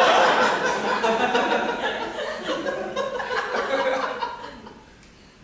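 Audience laughing, many people at once, loud at first and dying away near the end.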